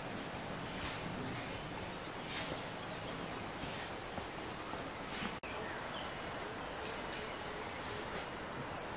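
Steady, high-pitched insect drone over a hiss of outdoor ambience, with a few faint short chirps; the sound drops out for an instant a little past halfway.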